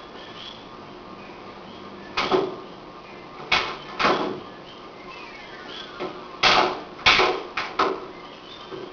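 A series of about seven sharp slaps and thuds at irregular spacing, the last three in quick succession, over a steady low background.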